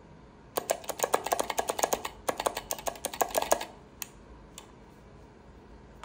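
Typing on an 8BitDo Retro Mechanical Keyboard with clicky Kailh Box White switches: a quick run of sharp key clicks for about three seconds, with a short break partway through, then two single key presses.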